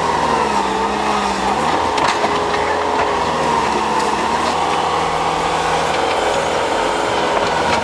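A vehicle or machine engine running steadily under load, its pitch dipping a little in the first two seconds and then holding level.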